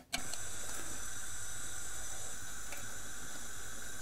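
Steady hiss of a saucepan of thick barbecue sauce heating on a gas hob, with a faint pop or two from the bubbling sauce.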